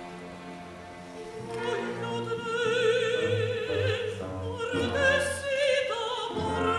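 Zarzuela singing with orchestra: after soft sustained strings, a woman's operatic voice enters about a second and a half in, holding long notes with wide vibrato.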